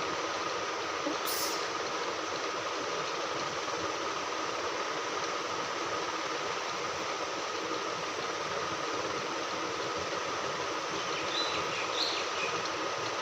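Steady background noise with a faint steady tone running through it, even in level throughout.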